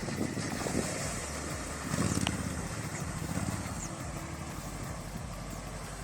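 Vehicle engine running steadily at low revs, briefly louder about two seconds in.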